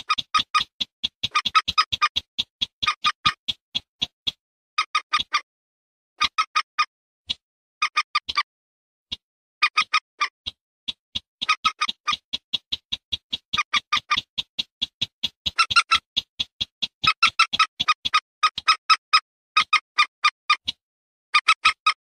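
Bird-lure recording of common moorhen (mandar batu) and sintar semak calls: rapid trains of sharp, clicking call notes in bursts of a second or two, separated by short pauses.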